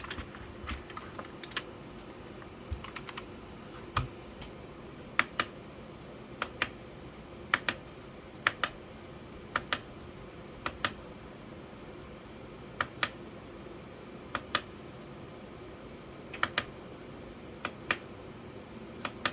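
Keys on an Aula F2058 mechanical keyboard pressed one at a time, each giving a sharp click going down and another on release, spaced a second or two apart with some longer gaps.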